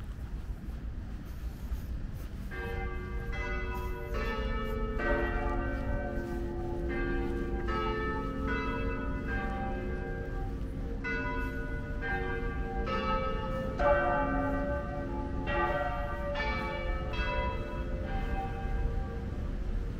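Tower bells ringing a sequence of strikes at different pitches, about two a second, starting a couple of seconds in, over a steady low rumble.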